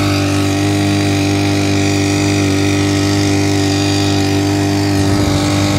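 Homemade outboard motor built from a 50cc grass-trimmer engine running at a steady speed, pushing an inflatable boat.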